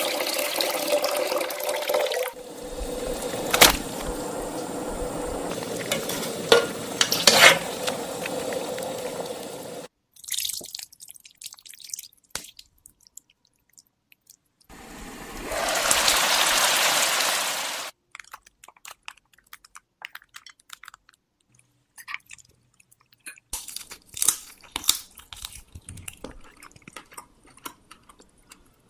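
Water poured into a cast-iron pot, then several seconds of steady running noise with a few sharp clicks. Later comes a steady hiss of about three seconds, and near the end light clicks and taps of chopsticks and bowls as someone eats.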